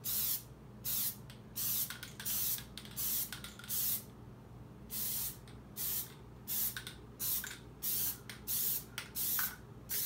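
Aerosol can of Plasti Dip spraying in many short hisses, one or two a second, with a pause of about a second near the middle: quick light passes laying down a first coat.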